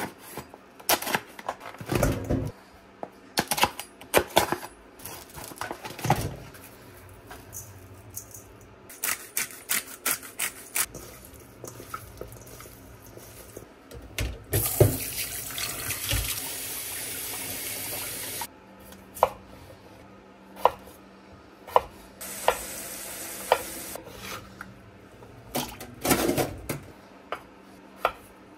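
Handling noise at a stainless steel kitchen sink: a plastic meat tray and a steel bowl knocking and clattering. About halfway through a tap runs into the bowl for about four seconds, with a second shorter run a little later. Near the end a knife cuts potatoes on a wooden board.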